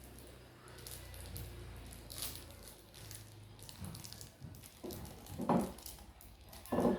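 Handling sounds from preparing tamarind in a glass: faint rustling, then two short dull knocks in the second half.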